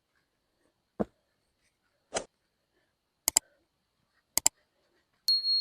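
A series of short knocks and sharp clicks about a second apart, the later ones in quick pairs, then a steady high ringing tone starting near the end.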